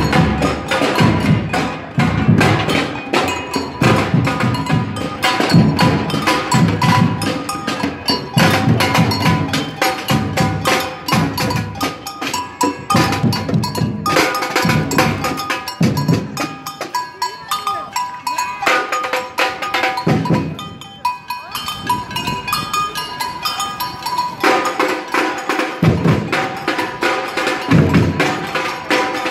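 Marching street percussion band playing: heavy bass drum beats in clusters under a fast, busy rhythm of sharp clicking strikes. The bass drums drop out for a few seconds past the middle, then come back.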